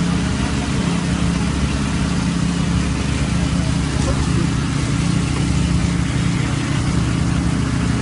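A concrete mixer truck's diesel engine runs steadily while the truck discharges concrete down its chute.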